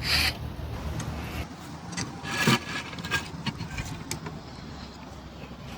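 Bicycle parts being handled during a fork and stem fitting: a short scrape at the start, another about two and a half seconds in, then a few light clicks and knocks.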